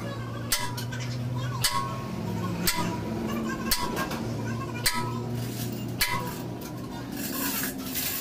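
Six sharp metallic clicks about a second apart, each ringing briefly, from a wrench being worked back and forth on a steel bolt of a truck axle housing's clamp. They stop about six seconds in, over a steady low hum.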